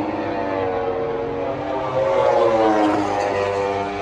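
MotoGP racing motorcycles at high revs, several engines overlapping as the bikes pass; the pitch climbs about two seconds in as the bikes accelerate.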